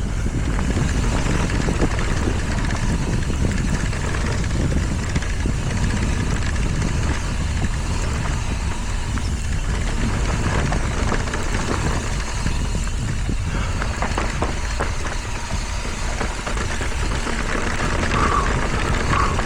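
Mountain bike descending a dirt downhill trail at speed: steady rumbling wind and ride noise on the camera microphone, with the tyres and bike rattling over the ground. A brief squeal comes near the end.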